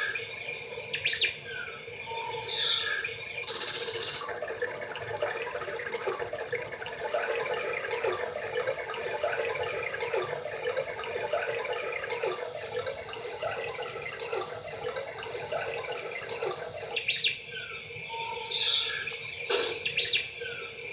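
Birds chirping. A short call pattern repeats about every second and a half near the start and again near the end, with a denser stretch of chirping in between.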